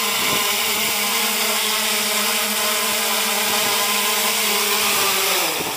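3DR Solo quadcopter's electric motors and propellers buzzing steadily at close range as it sets down, then winding down in pitch near the end as the motors stop after landing.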